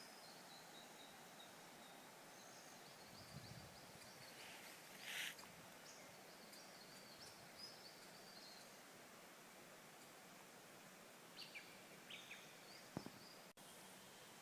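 Near-silent bush ambience with faint birds chirping now and then, a brief rustle about five seconds in and a single click near the end.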